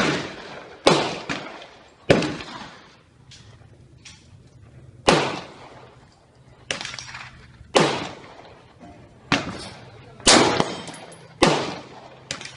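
AR-15 rifle firing about a dozen single shots at an uneven pace, a second or so apart with a few longer gaps. Each shot has a sharp crack and a short echoing tail.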